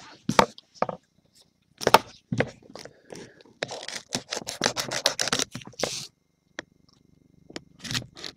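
Plastic shrink wrap on a trading-card box being slit and stripped off: a few sharp clicks and snaps, then about two and a half seconds of crinkling and scraping that stops suddenly.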